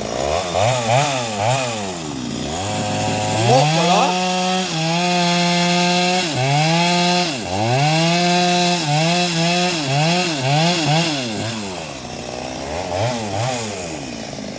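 Small high-revving engine, like a chainsaw's, revved up and down several times, then held at high speed with short dips, and blipped again near the end.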